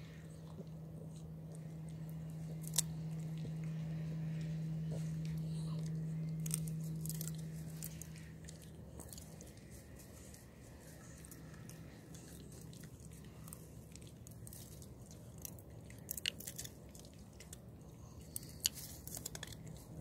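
Boston terrier chewing a stick, with scattered sharp cracks and crunches of the wood that come thickest near the end. A low steady hum swells over the first half and then fades.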